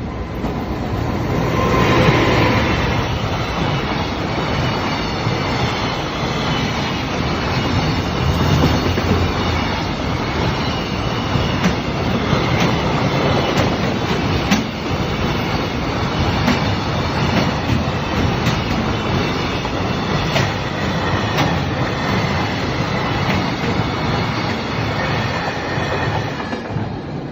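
Freight train passing over a level crossing: a steady loud rumble with wheels clacking over rail joints throughout and a faint high wheel squeal.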